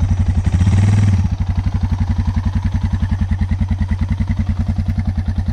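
Loaded dual-sport motorcycle's engine running with an even, pulsing beat. It is revved up briefly about a second in as the bike pulls away on sand, then runs steadily at low throttle.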